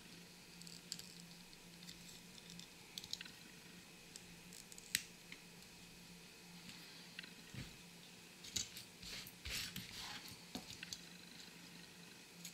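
Small plastic and metal parts of Corgi Toys Aston Martin DB5 die-cast models being worked apart and handled by hand: scattered light clicks and scrapes, one sharp snap about five seconds in, and a run of rustling and clicking near the end as parts are set down on a paper towel.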